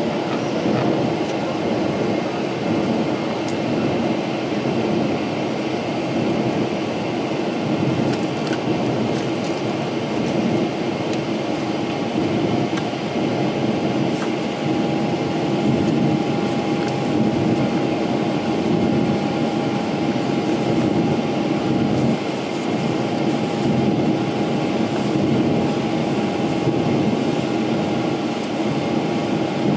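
Steady airliner cabin noise in flight: the even rumble of the engines and rushing air. A faint steady tone grows clearer about halfway through.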